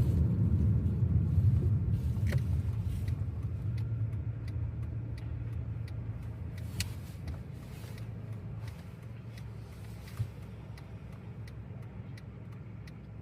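Car road noise heard from inside the cabin while driving on snowy streets: a steady low rumble that grows gradually quieter, with a few faint scattered clicks.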